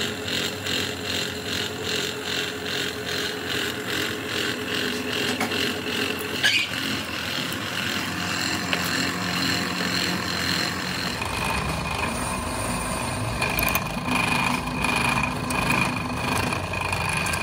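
Workshop machinery running steadily with an even rhythmic pulse. There is a sharp metallic click about six and a half seconds in, and near eleven seconds the sound shifts as a deeper rumble joins.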